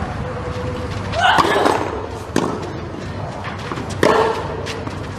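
Tennis rally on a clay court: sharp racket strikes on the ball every second or so, with a loud grunt from the hitting player on two of the shots, about a second in and about four seconds in.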